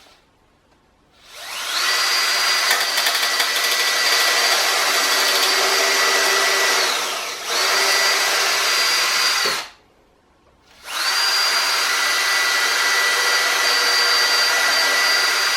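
Power drill running in two long spells at a steady, high-pitched motor whine, with a brief dip in speed partway through the first, as the workbench's lower frame is fixed to the legs with wood screws.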